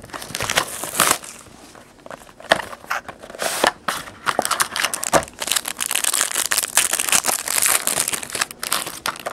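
Plastic wrapping being torn off a sealed trading card box and crumpled by hand: a steady run of irregular crinkling and crackling. Near the end the shiny wrapper of the pack inside is crinkled as it is pulled open.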